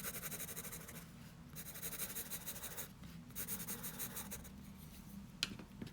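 Pencil drawn across paper in three long strokes, a faint scratchy hiss, with a small click near the end.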